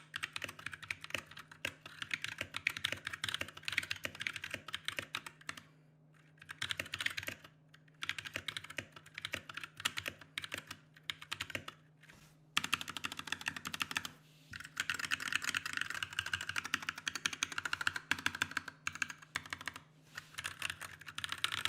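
Mechanical keyboard being typed on fast: unlubed Glorious Panda tactile switches in a Massdrop Alt, clacking in dense runs with a few short pauses. A faint steady low hum runs underneath.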